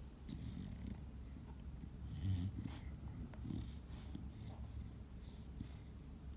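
Chow Chow gnawing on a chew: irregular wet chewing and crunching sounds, loudest about two seconds in.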